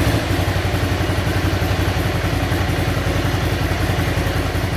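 Ducati Scrambler's air-cooled L-twin engine idling steadily, just fired up, with an even firing beat.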